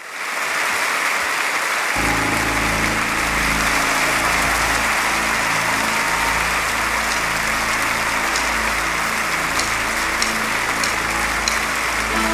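Concert audience applauding, a dense steady clatter of clapping. About two seconds in, a low held chord comes in underneath it and sustains.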